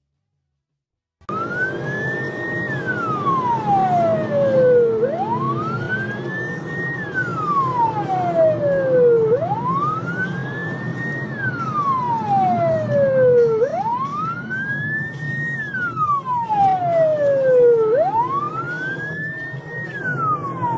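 Police car siren wailing, starting about a second in: each cycle rises quickly, then falls slowly, repeating about every four seconds, five times in all, over a steady low rumble of traffic.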